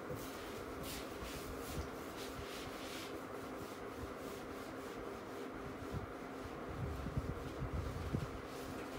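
Board duster rubbing across a whiteboard in quick repeated strokes, wiping off writing, over a steady background hum.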